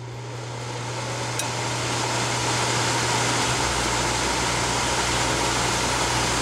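Duo-Therm rooftop RV air conditioner starting up. The blower fan's steady rush grows louder over the first couple of seconds, then about three and a half seconds in the compressor kicks in with a low rumble. It comes on gently, soft-started by a newly installed Micro-Air EasyStart.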